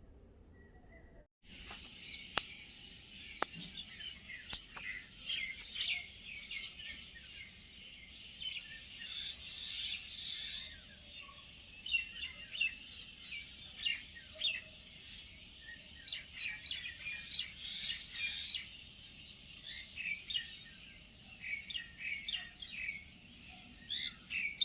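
Many birds chirping at once: a dense chorus of short, high, overlapping chirps that starts after a brief quiet opening about a second in, with a few sharp clicks among them early in the chorus.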